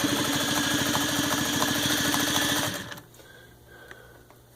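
Singer 301A sewing machine stitching fast through six layers of denim, a rapid, even clatter of needle strokes that stops after about three seconds, leaving a faint low hum.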